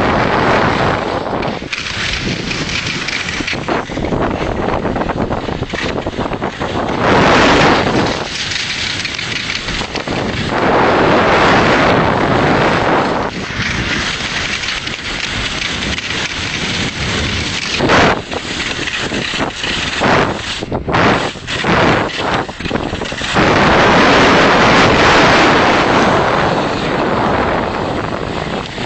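Wind buffeting the camera microphone: a loud, rough rushing that swells and eases in gusts, strongest about seven, eleven and twenty-four seconds in.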